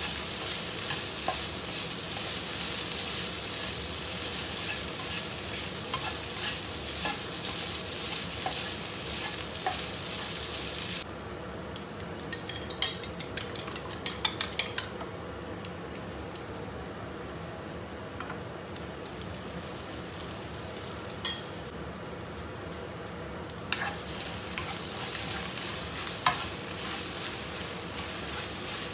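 Chopped imitation crab sticks sizzling in a nonstick wok while a spatula stirs and scrapes them. About a third of the way in the sizzle cuts out and a fork beats an egg in a bowl, a quick run of clinks with one more later; the frying and stirring come back near the end.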